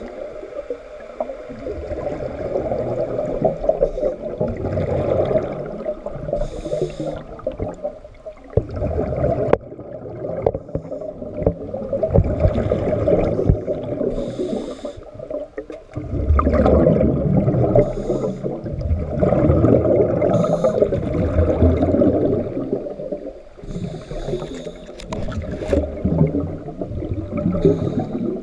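A scuba diver breathing through a regulator underwater: a short hiss on each inhale and a long bubbling rumble of exhaled air, repeating every few seconds.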